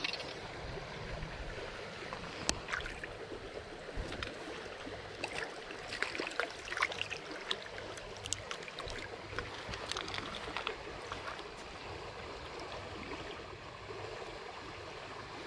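Shallow stream running steadily over gravel, with scattered short splashes and sharp clicks, mostly in the middle stretch, as a small trout is netted and handled at the water's surface.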